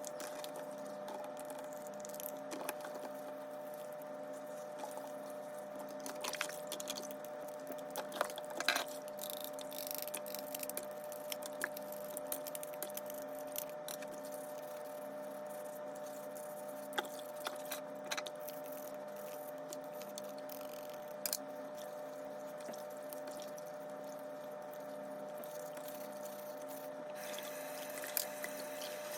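Water running steadily with a constant hum beneath it, broken by scattered light knocks and clicks of parts being handled during cleaning.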